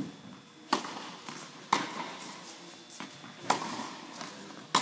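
Tennis ball struck and bouncing in a rally: four sharp hits at uneven gaps of one to two seconds, echoing in the indoor tennis hall.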